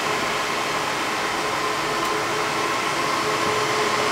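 Rack-mounted servers' cooling fans and the server room's air cooling running as a steady rushing noise with a faint steady whine.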